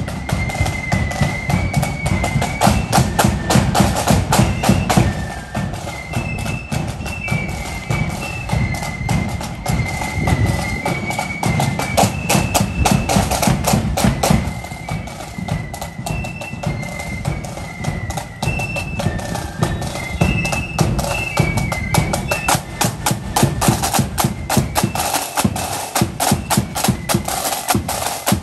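A marching flute band playing a tune: flutes carry a high stepping melody over a steady beat of snare drums and bass drum.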